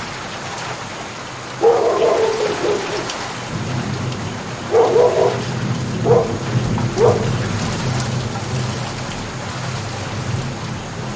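Steady rain falling. A dog barks about four times in the first half, and a low rumble joins under the rain a few seconds in.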